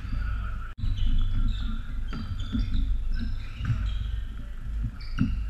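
Floorball game play echoing in a sports hall: short squeaks of shoes on the court floor and clacks of sticks and the ball over a steady low hall rumble. The sound cuts out for an instant about a second in.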